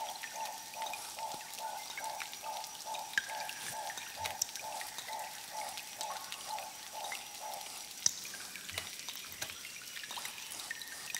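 Rainforest ambience: water dripping in scattered drops, with a steady high whine. A rhythmic pulsing call repeats about three times a second and stops about eight seconds in.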